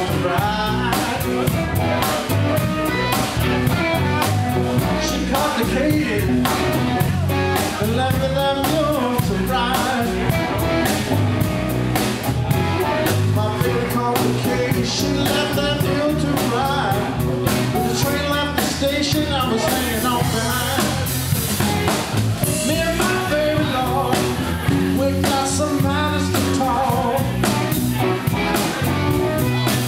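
Live blues-rock band playing: electric guitars, bass and a drum kit, with a man singing the lead through the PA.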